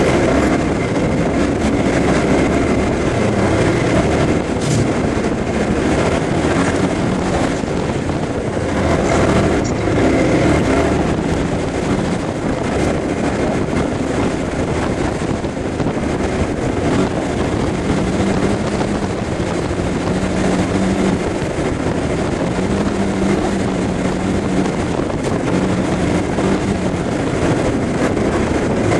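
Ride noise of a Suzuki Burgman 400 maxi-scooter, its single-cylinder engine and the wind played back at high speed: a dense, steady rushing roar with faint wavering engine tones.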